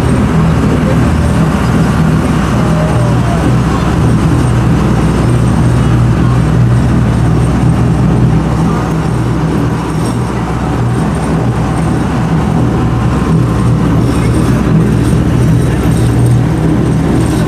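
Amphibious duck boat's engine running steadily as it cruises on the river: a loud, even, low drone.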